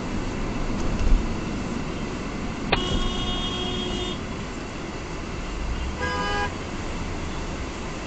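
A car horn sounds twice: a steady blast of about a second and a half around three seconds in, then a shorter honk about six seconds in. Steady road and engine noise from inside a moving car runs beneath.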